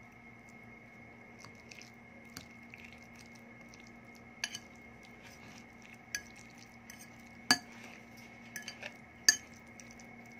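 A metal fork clinking and scraping against a ceramic plate as it scoops food, in scattered sharp clinks, with two much louder strikes in the second half.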